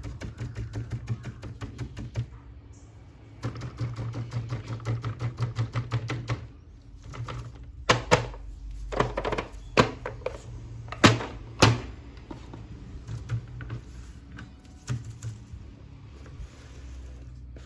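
Hands working plastic toy packaging and figures: two runs of quick, even clicking at about five clicks a second, then several sharp, loud plastic clicks and knocks.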